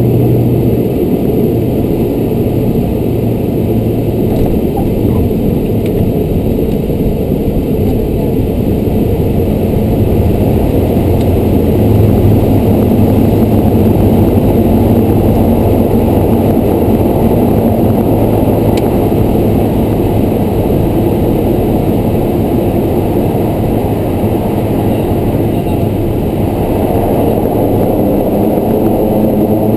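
Steady loud drone of a Beechcraft King Air's twin PT6A turboprop engines and propellers, heard inside the cockpit, with a low propeller hum under it. A few seconds before the end the tone shifts as a set of higher steady droning notes comes in.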